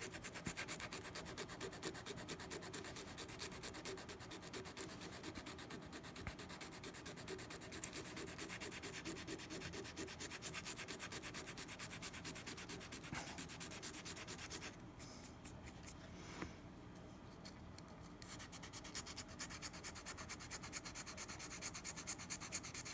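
Fast, faint back-and-forth rubbing of 220-grit sandpaper on the bite area of a metal mouthpiece, shaping and smoothing the bite-plate repair material at the coarse stage. The strokes stop for a few seconds about two-thirds through, then start again.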